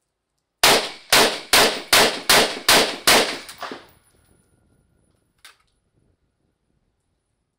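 IWI Galil Sniper semi-automatic 7.62×51mm rifle firing seven rapid shots, about two and a half a second, in a water-exposure reliability test. A faint metallic click follows about two seconds after the last shot.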